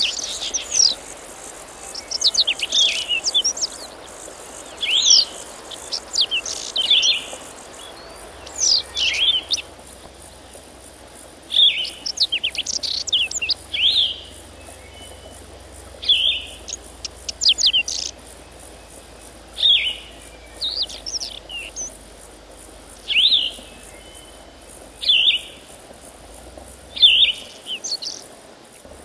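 A songbird singing short, sharp phrases of quick down-slurred notes, one phrase every one to two seconds, over a faint steady high hiss.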